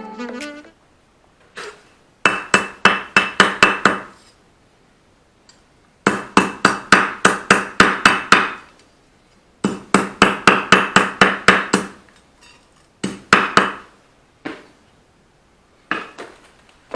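Runs of quick ringing taps, about six a second, several seconds each with pauses between: a tool tapping bricks down into mortar as they are laid.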